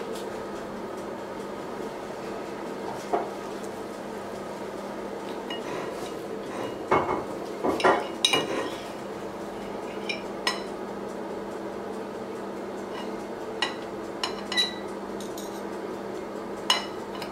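Steel knife and fork clinking and scraping against a china plate while cutting a soft piped potato. A few scattered sharp clinks, busiest about halfway through, sound over a faint steady hum.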